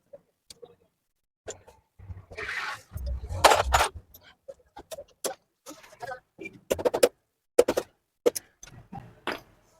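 Scattered metallic clicks, clinks and knocks as tools and engine parts are handled while the cylinder head of a motorcycle engine is taken apart. A short hiss comes around two seconds in, and a heavier thump with a low rumble about three and a half seconds in.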